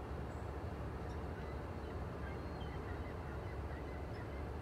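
Steady low outdoor rumble, like distant traffic or wind, with a few faint, short high chirps scattered through it.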